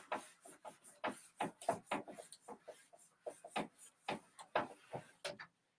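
Handheld whiteboard eraser wiping dry-erase marker off a whiteboard: a run of quick, uneven rubbing strokes that stop shortly before the end.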